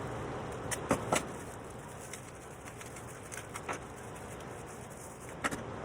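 A few light clicks of small plastic model-aircraft parts being handled and fitted together, two sharper ones about a second in and softer ones later, over a steady background hum.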